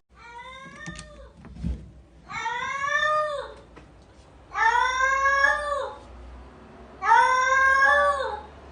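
A cat giving long, drawn-out meows: a fainter one near the start, then three loud ones of about a second each, spaced about two seconds apart, each dropping in pitch at its end.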